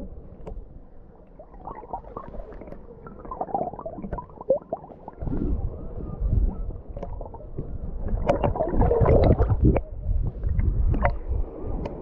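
Shallow sea water sloshing and gurgling, in irregular surges that grow louder in the second half.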